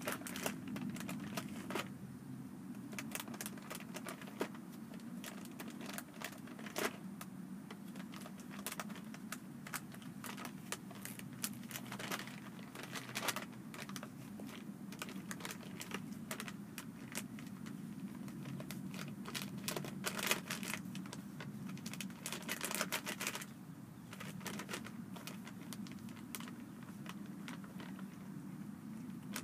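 Irregular crinkling and crackling of a plastic dog-food bag as a seven-week-old miniature schnauzer puppy noses and chews at it, in clusters with short lulls, over a steady low hum.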